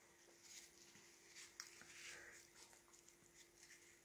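Near silence: faint rustling of a paper tissue being folded in the hands, with a faint steady hum underneath.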